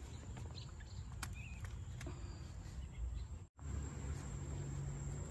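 Garden ambience with a steady high-pitched insect trill from crickets, over a low rumble of wind and handling on the microphone and a few faint clicks. The sound drops out briefly about three and a half seconds in.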